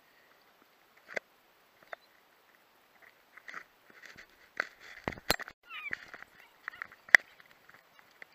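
Scattered splashes and sharp knocks close to the microphone at the water's edge, loudest about five and seven seconds in, with a few short gliding animal calls about six seconds in.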